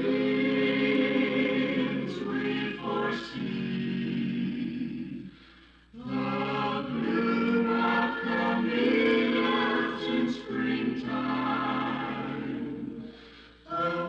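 A mixed vocal group singing a radio station jingle in held chords. It comes in two long phrases with a brief break about halfway through, and another break just before the end.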